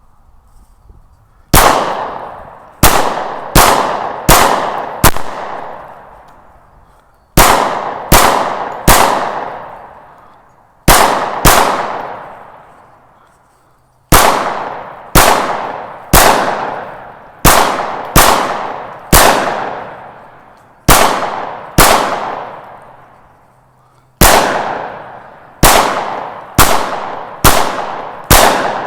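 Glock 29 Gen 5 10mm pistol firing about two dozen shots, in quick strings of two to six with pauses of a second or two between. Each shot is followed by a long echoing decay.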